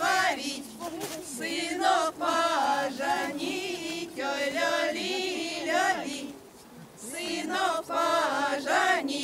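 Group of women singing a Russian folk spring-calling song (vesnyanka) a cappella, voices together in short phrases, with a brief break about six seconds in.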